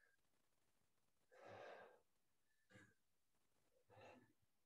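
Faint breathing from a man exerting himself: three audible breaths out, the first and longest about a second and a half in, then two shorter ones.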